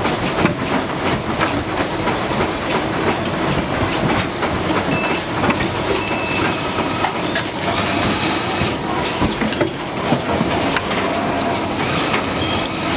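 Steady clatter of factory machinery: a continuous noisy din with many small clicks and knocks running through it.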